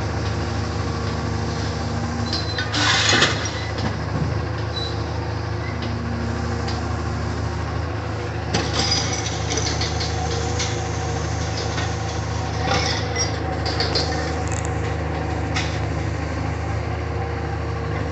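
Caterpillar wheeled material handler's diesel engine running steadily, with several short bursts of clanking and rattling scrap metal as it loads a gondola rail car.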